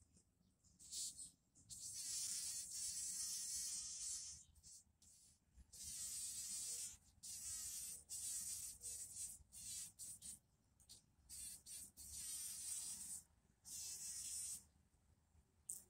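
Bumblebee buzzing in repeated bursts of a second or two, with short quiet gaps between, while it works the centre of a rose.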